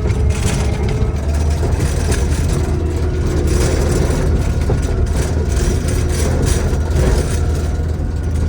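Kubota diesel engine of a Takeuchi TL12 tracked compact loader running steadily with a deep, even hum.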